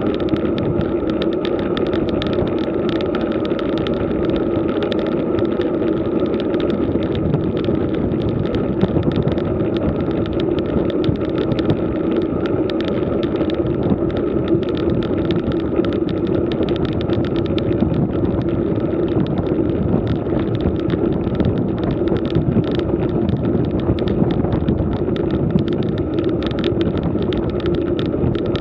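Steady road noise of a road bike riding up a rough country road, heard through a camera mounted on the bike: tyres rolling on the worn asphalt and wind on the microphone, with a constant hum and a light rattle from the mount.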